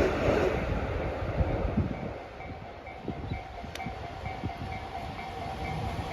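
Railway level crossing alarm ringing, short repeated dings about twice a second, warning of an approaching train. A rushing noise fades away over the first two seconds.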